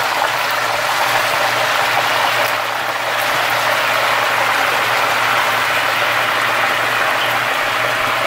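Chicken skin deep-frying in hot oil in a pan: a loud, steady sizzle and crackle of bubbling oil, with a low steady hum underneath.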